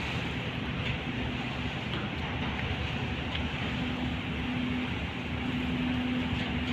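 Steady rumble of a car ferry's engines and machinery while berthing, with a steady hum that grows stronger about four seconds in.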